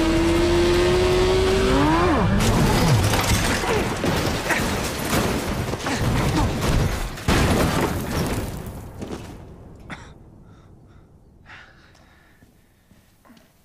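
Motorcycle engine running at high revs with quick rev changes, then a violent crash: a long stretch of scraping, tumbling and smashing with one heavy impact about seven seconds in, fading away with scattered debris sounds.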